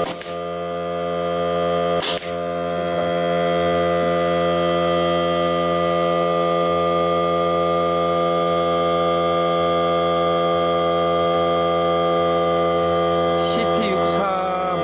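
Greenworks 40 V cordless air compressor running steadily with a pitched motor hum, while a pneumatic nailer fires two shots, one right at the start and one about two seconds in.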